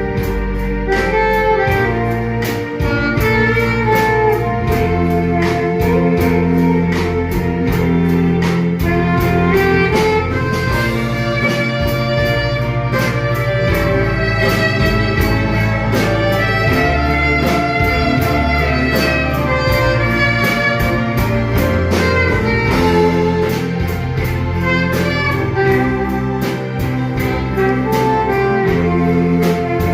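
Live band with saxophone, drums, keyboard, bass guitar and electric guitar playing a slow instrumental trot ballad, with a melody line over a steady drum beat.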